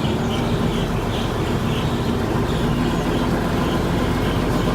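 Bangkok canal boat's diesel engine running steadily under way, with a fast low throb.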